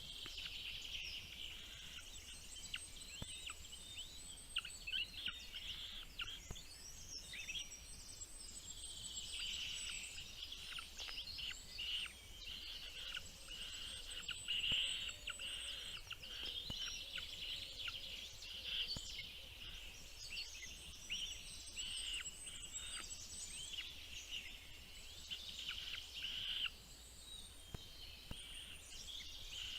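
Small birds chirping: a dense run of rapid, high-pitched chirps and calls that keeps going without a break, thickening and growing louder in places.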